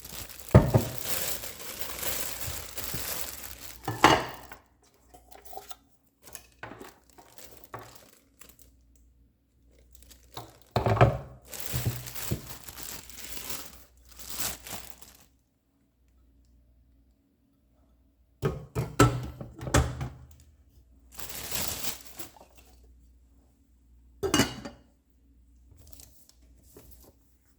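Packaging being handled while a slow cooker is unboxed: crinkling and tearing in irregular bursts, with quiet pauses between them and a few knocks.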